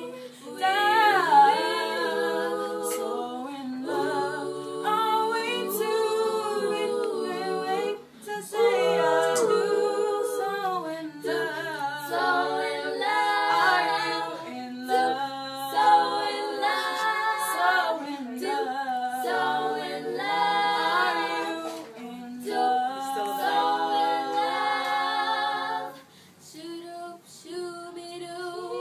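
A small group of young girls singing a cappella together, with a short pause near the end.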